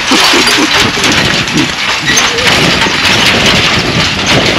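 Loud wind buffeting the microphone, with dry prairie grass rustling as someone walks through it, and faint voices under the noise.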